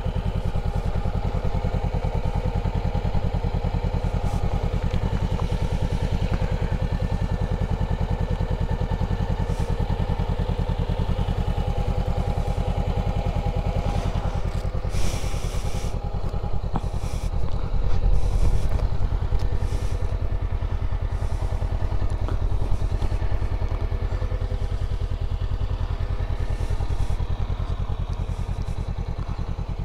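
Honda CB500X's parallel-twin engine running steadily at low speed, picked up close to the front wheel. A short hiss comes about halfway through.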